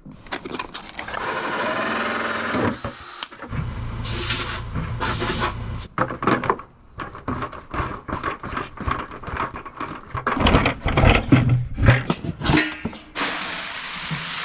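A small power tool running in several short spells, broken up by a long stretch of quick knocks and clicks.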